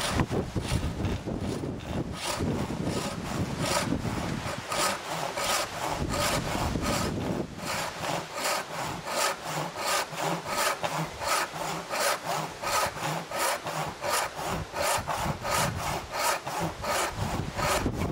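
Disston No. 5 backsaw, filed with 6 degrees of rake and 5 degrees of fleam, cutting a wooden block in steady, even strokes, about two to three strokes a second. Wind on the microphone rumbles low under the first several seconds, then dies down.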